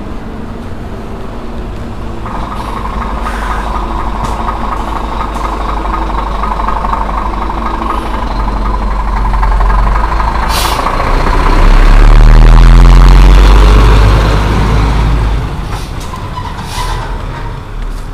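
Heavy dump truck coming up from behind and driving past. Its diesel engine rumble builds to a loud peak about twelve seconds in, with the engine note rising as it passes, then fades as it pulls away ahead.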